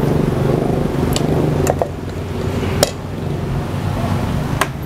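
A spoon clinking a few times against a stainless steel mixing bowl as a spicy salad is mixed, short sharp clinks spread across a steady low background hum.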